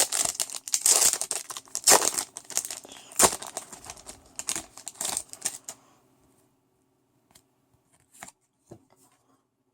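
Crinkling and rustling of a Pokémon card booster pack's foil wrapper as it is handled, lasting about six seconds, then a few light taps.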